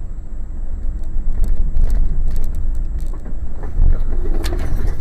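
Truck cab on the move: steady low road and engine rumble with rattles and knocks, then sharp hits near the end.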